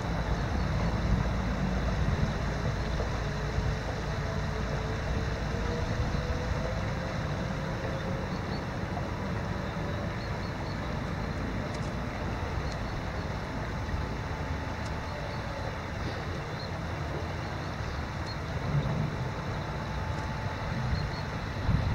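Steady rush of a shallow river running over gravel, with wind rumbling on the microphone.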